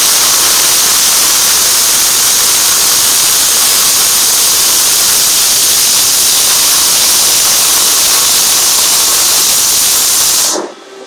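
MAG welding arc laying a continuous bead on steel railing posts: a loud, steady hiss that cuts off about ten and a half seconds in when the arc stops.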